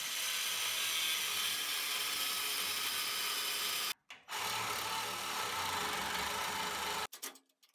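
An angle grinder with a cutoff wheel cutting into the steel upper suspension hat of a Mustang II front suspension. After a brief break about four seconds in, a cordless reciprocating saw cuts the same steel bracket, then stops abruptly about a second before the end.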